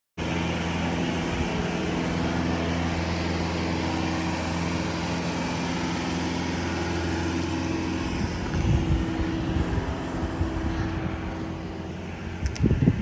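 An engine running steadily at an even speed with a constant hum, joined by gusts of wind on the microphone from about eight seconds in.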